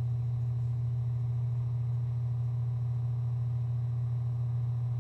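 A steady low hum with fainter steady tones above it, unchanging in pitch and level throughout.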